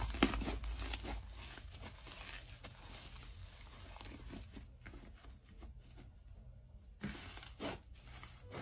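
Thick, dough-textured slime being stretched, torn apart and squished by hand, making crackly tearing sounds with many small clicks and pops. The tearing is loudest in the first second and again in a couple of bursts near the end.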